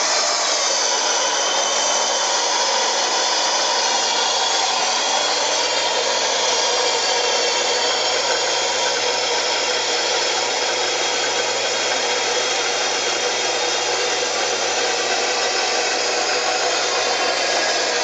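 1959 KitchenAid KD-12 dishwasher's pump motor running with a steady whir and a low hum. The tub is still empty, so the impeller spins with no water to grab and the wash arm is not turning yet.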